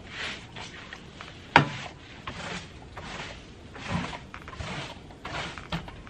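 Broom sweeping a wooden deck, a short swish with each stroke about twice a second. A single sharp knock about a second and a half in.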